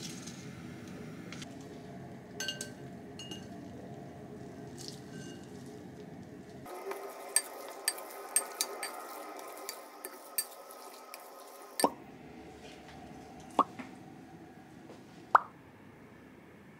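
Small household clinks and taps with drips and plops of water, heard in a few short cuts of quiet room noise. A run of sharp ticks comes in the middle, and two louder ringing clinks come near the end.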